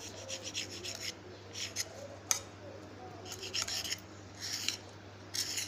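Kitchen knife sawing through the crust of a sandwich to trim off its edges, in short bursts of back-and-forth strokes with pauses between. One sharp click a little past two seconds in.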